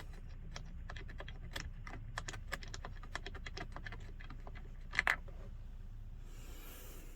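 Rapid, irregular light clicks and taps of small hard parts being handled, such as tools and bolts during a seat armrest bolt repair. There is a louder double click about five seconds in, then a brief soft rustle near the end.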